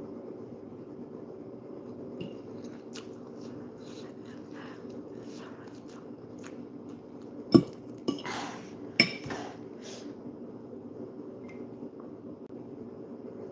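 Metal fork clinking against a glass bowl: two sharp clinks about a second and a half apart past the middle, among quieter small clicks and chewing sounds over a steady low hum.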